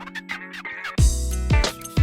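Background music: plucked guitar-like notes, then about a second in a deep bass and a beat come in much louder.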